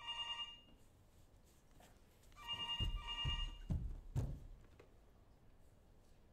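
Telephone ringing: one ring ends just after the start and another comes about two and a half seconds in. Low thuds of footsteps on the stage floor fall during and just after the second ring.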